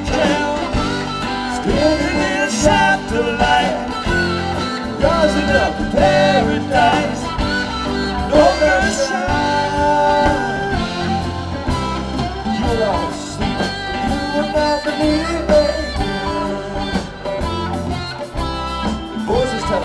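Live band music: electric guitars over drums and keyboard, with two voices singing.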